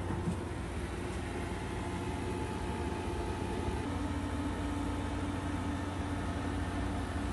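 A steady low machine hum with some hiss, and a second steady tone joining in about four seconds in.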